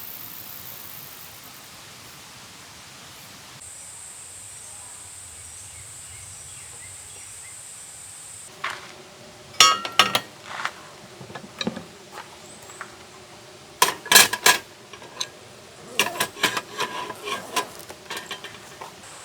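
A steady high insect trill over outdoor hiss. From about eight seconds in, a run of sharp clinks, knocks and clatter, some briefly ringing, as of hard objects being handled and set down.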